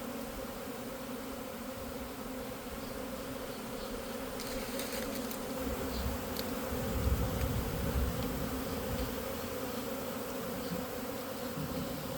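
Honeybee swarm buzzing in a steady drone of many bees as it moves into a swarm-catching box. A low rumble swells and fades about halfway through.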